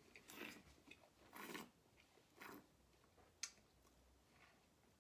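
Faint mouth and breath noises of a wine taster: a few short breathy rushes, with one sharp click a little after three seconds in.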